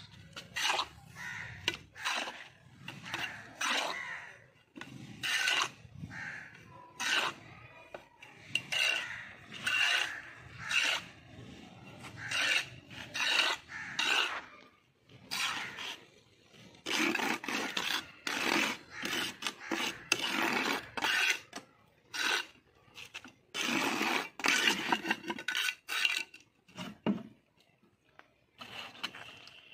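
A small steel trowel scooping and scraping damp sand-and-cement mix into a metal tile mould, in many short irregular strokes that stop shortly before the end.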